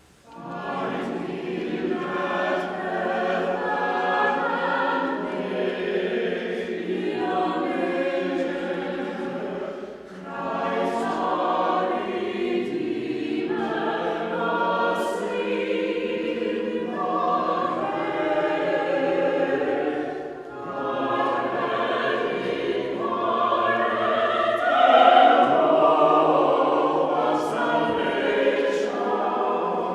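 Choir singing sacred choral music in long phrases, with brief breaks between phrases about ten and twenty seconds in.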